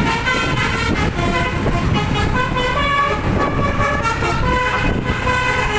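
Indonesian bus 'telolet' musical horn playing a run of changing notes, over the low rumble of the bus and traffic.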